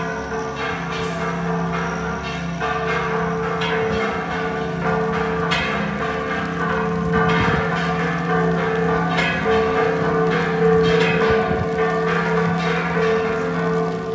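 Church bells ringing a repique, the festive peal announcing a patronal feast: several bells struck in quick, irregular succession over the steady hum of the larger bells' ringing tones.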